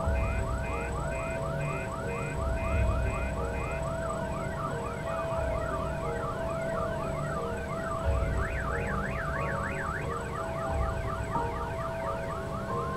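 Siren-like electronic soundtrack: layered whoops that rise in pitch several times a second, with a run of short beeps early on and quick up-and-down sweeps about two-thirds of the way in, over a steady low rumble.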